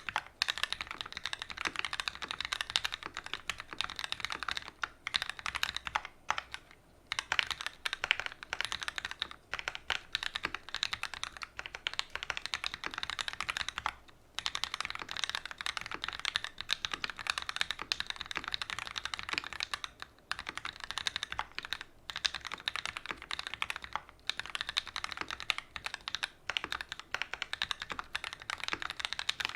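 Continuous fast typing on a custom mechanical keyboard with Gateron Ink Black linear switches on an aluminium plate and GMK TA90 doubleshot ABS keycaps, with brief pauses between bursts.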